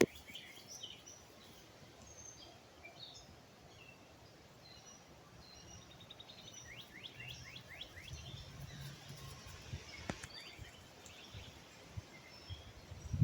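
Faint outdoor ambience of small songbirds chirping on and off, with one quick trill of about eight rapid repeated notes a little past the middle.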